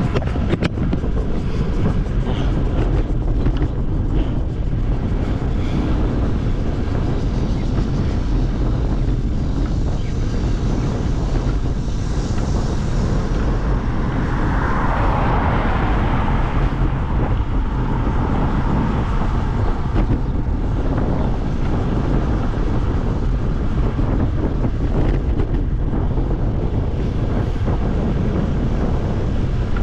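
Wind buffeting the microphone of a camera on a moving bicycle, a steady low rumble of rushing air, with a louder swell of noise about halfway through.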